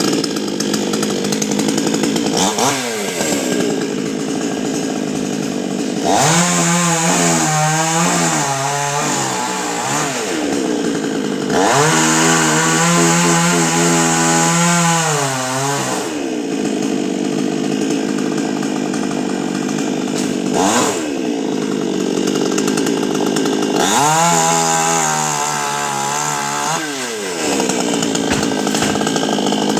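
Chainsaw running continuously while cutting coconut tree wood. Its engine pitch drops and recovers in three spells, about six, twelve and twenty-four seconds in, as the chain bites into the trunk.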